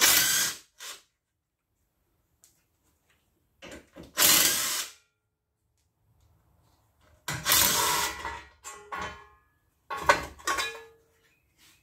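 Cordless power driver running in several short bursts, backing out the small 8 mm bolts that hold the rear brake heat shield.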